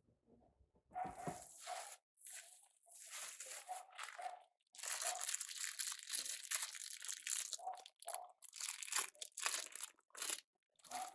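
Plastic packaging being handled, crinkling and rustling in irregular bursts, with a longer unbroken stretch of crinkling in the middle.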